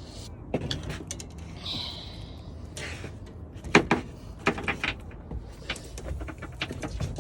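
Irregular knocks and clicks of fishing gear being handled in a small boat, the sharpest nearly four seconds in, with a brief hiss about two seconds in.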